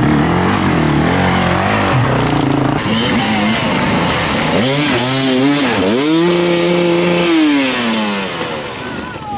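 Enduro dirt bike engines revving hard in repeated bursts, then held at high revs and falling away near the end, as the bikes struggle bogged down in deep mud.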